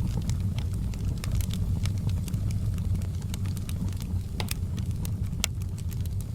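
Wood fire in a fireplace crackling: frequent sharp pops and snaps over a steady low rumble, with two louder pops past the middle.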